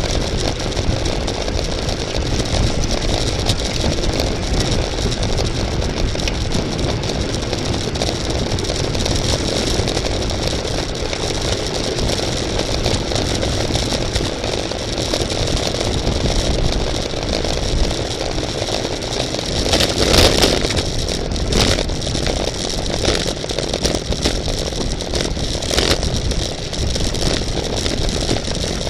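Steady rushing wind and road noise on a camera carried by a racing bicycle at speed, with a few short, louder bursts about twenty seconds in and again a few seconds later.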